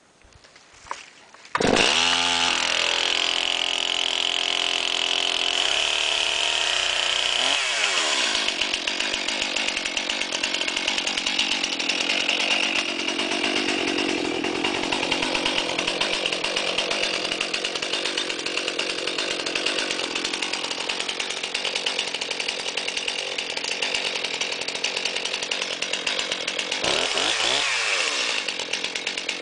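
Stihl MS 261 two-stroke chainsaw starting up about two seconds in and running at lower speed for a few seconds. It is then revved to full throttle and cuts through a log, the engine note dipping and rising again near the end as the throttle eases off and comes back on.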